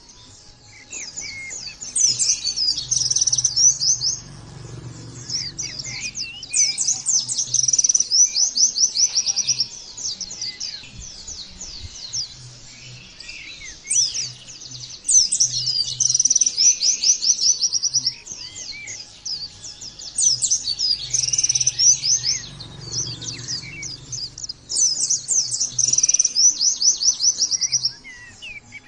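White-eye (pleci) singing in long, fast trilled phrases of rapid high notes, each several seconds long with short gaps between them. This is the rapid-fire 'nembak' song that is played to caged white-eyes to train them.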